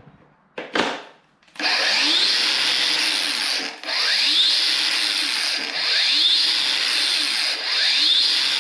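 Angle grinder motor running with its disc nut only spun on hand-tight. It starts about one and a half seconds in and is briefly let off and pressed again three times, each restart a rising whine as the disc spins up.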